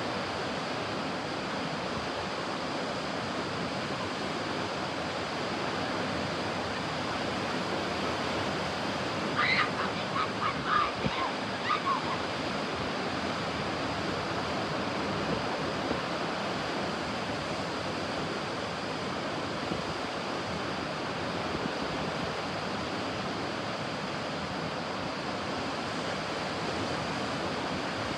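Ocean waves washing steadily onto a beach, a constant surf noise. About ten seconds in, a short cluster of brief higher-pitched sounds rises briefly above it.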